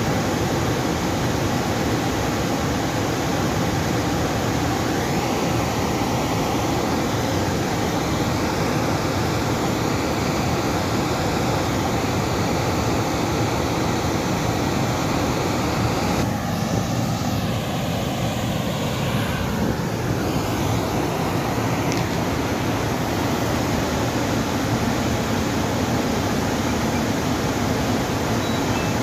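Steady rushing noise of dam water flowing, with faint wavering pitched tones over it in the middle.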